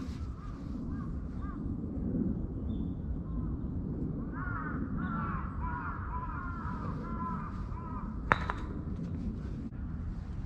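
Several crows cawing, a few calls at first, then many overlapping caws for several seconds in the middle. A single sharp knock sounds a little past eight seconds in, over a steady low outdoor rumble.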